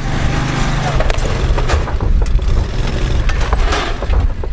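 A vehicle engine running hard, with a series of sharp crunching and cracking impacts, as of a car body or wood being smashed and driven over.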